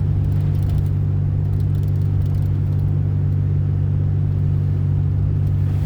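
Four-wheel-drive pickup truck driving, heard from inside the cab: a steady low drone of engine and road noise.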